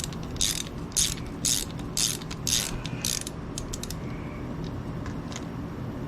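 Ratchet wrench running a bolt in with short rasping strokes about twice a second, which stop a little after three seconds in and end with a few sharp clicks. The bolt is now threading in.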